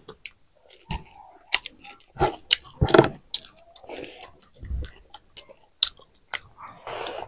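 Mouth sounds of people eating a meal of sweetcorn, chicken and rice by hand: wet chewing and lip smacks with scattered sharp clicks. A short breathy rush comes near the end.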